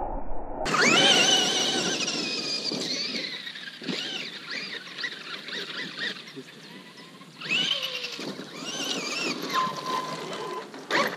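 Brushless electric motor of a large RC monster truck whining high under throttle. The pitch falls away over the first couple of seconds, rises again about two-thirds of the way through, and falls off once more.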